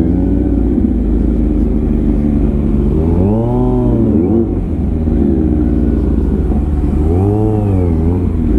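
Superbike engine ticking over at low revs, blipped twice, about three seconds in and again near the end, the revs climbing and dropping straight back each time.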